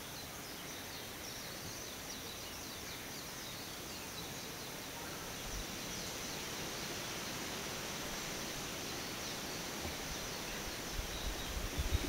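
Small birds chirping and calling in woodland over a steady wash of wind through the leaves, with a few low bumps near the end.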